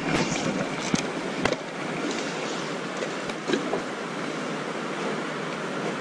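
Steady rushing noise of flowing river water, with a few light clicks in the first second and a half.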